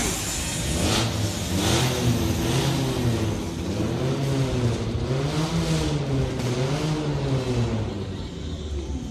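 Motorcycle engine revved up and down over and over, its pitch rising and falling about once a second.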